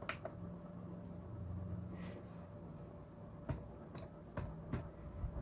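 A handful of sharp clicks from a laptop keyboard and mouse as a file name is typed in, about five in all, most of them in the second half, over a faint steady hum.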